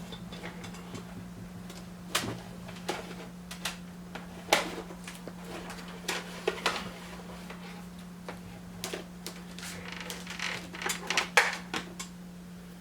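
Scattered clicks and knocks from hands handling a mixer circuit board and plugging in a headphone lead, over a steady low hum. The clicks come thicker near the end.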